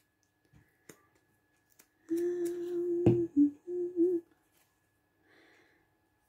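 A woman humming to herself: one held note, then two or three short notes, with a light tap on the table about three seconds in.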